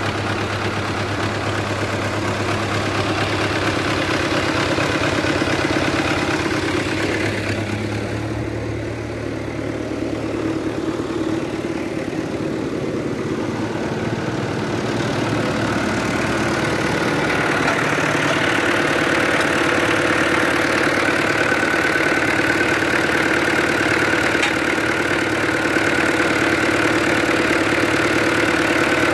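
Fiat 640 tractor's four-cylinder diesel engine idling steadily, just restarted after an airlock in its fuel system, with the fuel lines still being bled.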